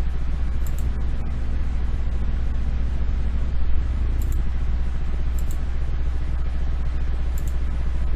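Steady low electrical hum with a hiss of background noise, plus a few brief faint high ticks.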